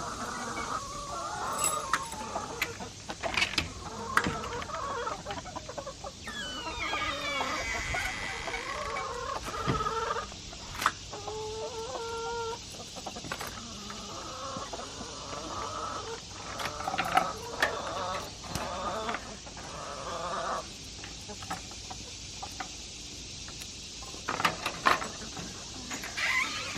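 Backyard hens clucking and calling on and off, with a few longer held calls and scattered knocks and clatters.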